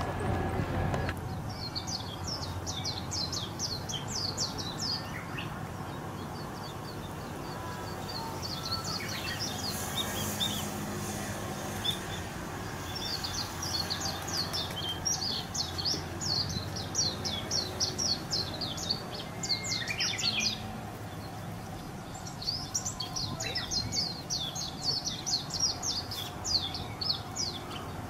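Ring-necked parakeet calling in four bouts of rapid, high chirps, each lasting a few seconds, over a steady low background rumble.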